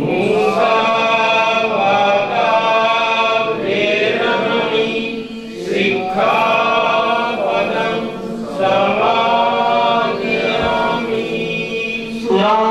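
Buddhist devotional chanting through a microphone, led by a monk with the congregation chanting along, in phrases with short breaths between them. A steady tone runs underneath throughout.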